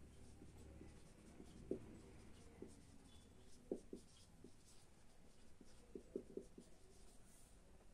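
Marker pen writing on a whiteboard: faint, scattered short strokes of the tip on the board.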